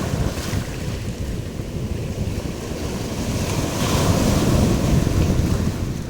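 Strong wind buffeting the microphone with a heavy low rumble, over the wash of surf; a louder rush swells up about four seconds in.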